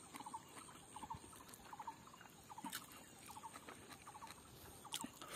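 Faint background chirping in short groups of three or four quick notes that repeat about every half second. Soft clicks of chewing and eating by hand come through now and then.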